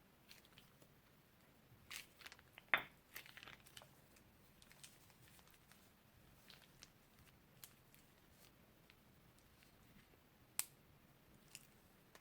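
Faint, sparse crackles and crunches of crunchy slime and plastic piping bags being handled. A busier cluster comes about two to four seconds in, and a single sharp click near the end.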